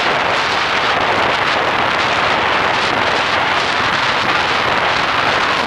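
Steady, loud wind rush buffeting the microphone of a camera riding on a moving motorcycle at road speed.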